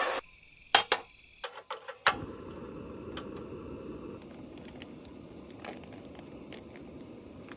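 Camp cooking: a few sharp clicks and clatters of cookware, then a steady hiss from about two seconds in, under a constant high trill of insects.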